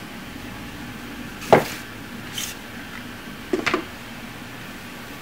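Objects handled on a wooden tabletop: one sharp knock about a second and a half in, a brief papery swish, then a short cluster of taps a little later, over low room hiss.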